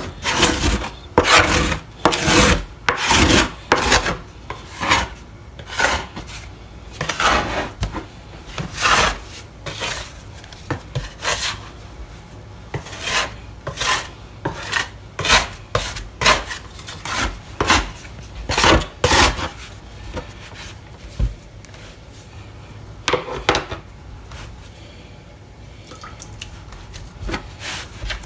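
Flour and water being mixed into bread dough in a bowl: repeated rough scraping and rubbing strokes, about one or two a second, that become sparse over the last several seconds.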